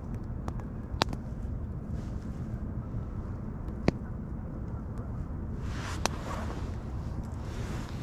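Wood bonfire crackling, with a few sharp single pops, over a steady low rumble of wind on the microphone; a brief hiss swells up about six seconds in.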